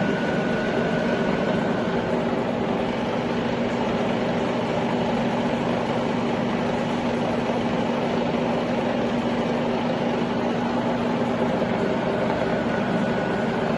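Sachman bed milling machine's feed drive running steadily while the ram moves in cross travel at feed rate: a continuous motor-and-gearbox hum with a steady low tone.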